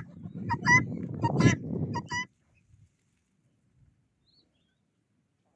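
Helmeted guinea fowl calling: a quick run of short, harsh calls over low background noise, cutting off suddenly a little over two seconds in.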